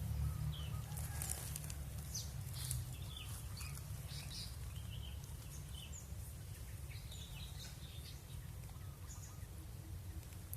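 A chorus of small wild birds chirping and calling over one another: many short, high chirps scattered throughout, over a steady low rumble.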